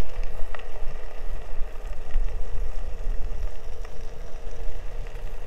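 Low wind-on-microphone rumble and tyre noise from a Onewheel electric board being ridden along a trail, with a steady faint hum and a couple of light ticks.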